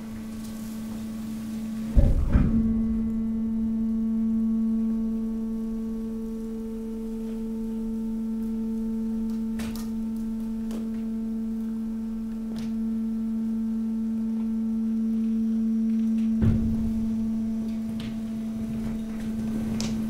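Hydraulic waste compactor running with a steady hum. A heavy clunk about two seconds in makes the hum louder, and another clunk comes near the end, with a few faint knocks from the leaves and waste being pushed in between.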